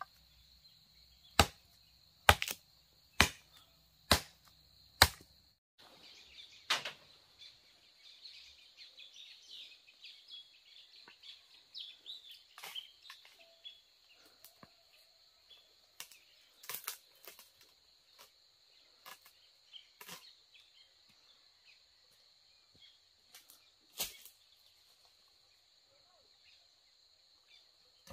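Chopping blows on bamboo, six sharp strikes about a second apart, then lighter irregular knocks and rustling with a few single hard strikes, over a steady high drone of insects.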